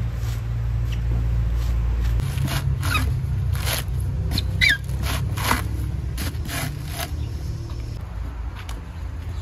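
A coconut husk being pried and torn off on a fixed steel husking spike: scattered scraping, squeaks and sharp rips of fibre, over a steady low hum.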